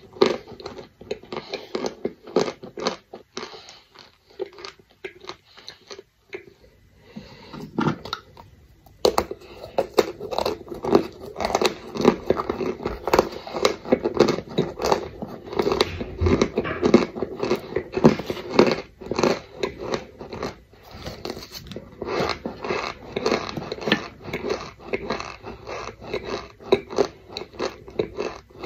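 Close-up biting, crunching and chewing of packed cornstarch chunks, a dense run of small crisp crunches. It thins out for a few seconds about a quarter of the way in, then picks up again.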